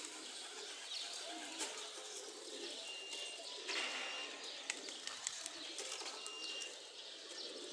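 Racing pigeons cooing softly around the loft, with small birds chirping and whistling in the background.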